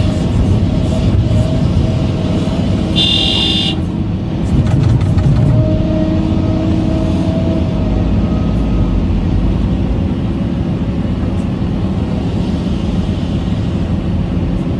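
A vehicle engine running steadily, with a short high-pitched beep about three seconds in.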